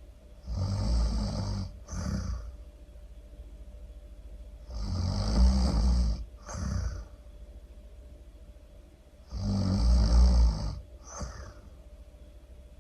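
A person snoring loudly: three snores about four and a half seconds apart, each a long drawn breath followed by a shorter second one.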